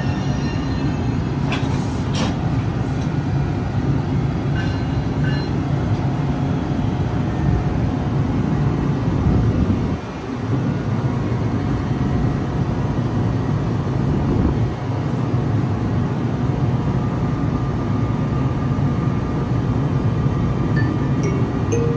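NJ Transit ALP-46 electric locomotive rolling slowly to a stop alongside the platform, then standing with a steady low hum.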